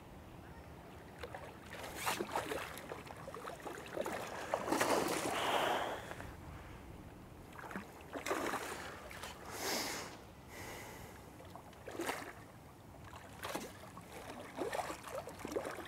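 Water splashing in irregular bursts as a hooked carp thrashes at the surface and a landing net is worked in the water, with the longest splash about five seconds in.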